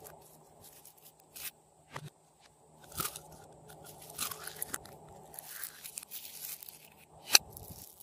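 Purple slime being stretched by hand and pushed back into a clear plastic tub, giving off sticky crackles, squelches and small pops. A single sharp pop near the end is the loudest.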